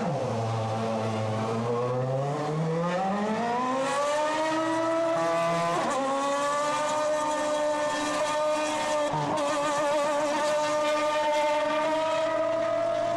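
Sauber C30's Ferrari V8 Formula One engine accelerating. Its pitch dips at the start, then climbs steadily for about five seconds, with gear changes about six and nine seconds in, before holding a high, steady note.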